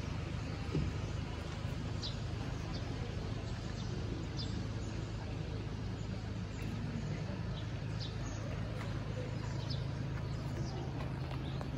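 Outdoor ambience: a steady low hum with scattered short, high bird chirps every second or two.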